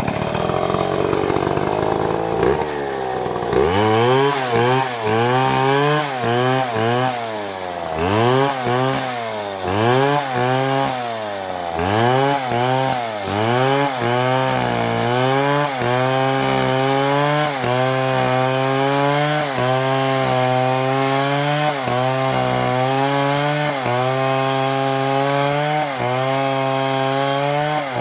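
Large Stihl two-stroke chainsaw revving up and down repeatedly, then held high from about halfway, its pitch dipping slightly now and then as it cuts into wood.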